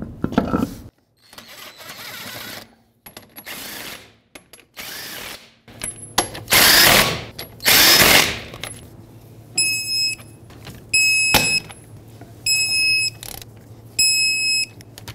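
Cordless impact wrench running wheel lug nuts on in several short bursts, the two near the middle loudest as the nuts seat. Then a torque wrench on the lug nuts: one sharp click and a short high electronic beep repeating about every second and a half.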